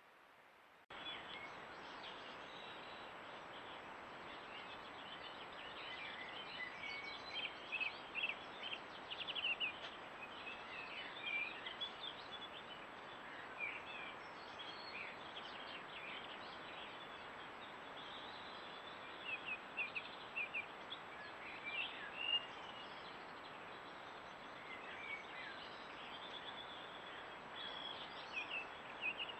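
Wild birds chirping and singing, many short high notes scattered throughout, over a steady background hiss that starts abruptly about a second in.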